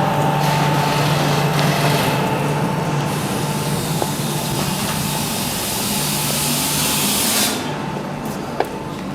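Factory-floor machinery noise: a steady low hum under a loud hiss that cuts off suddenly about seven and a half seconds in, leaving the hum and a couple of light clicks.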